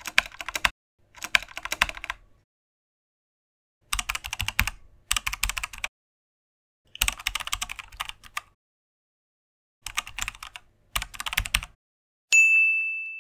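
Keyboard typing sound effect: several short bursts of rapid keystroke clicks with silent gaps between them. Near the end a single high bell-like ding rings out and fades.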